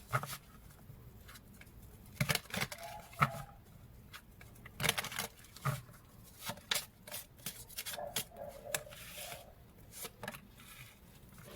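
Tarot and oracle cards being handled: scattered soft taps, slides and rustles, quiet and irregular.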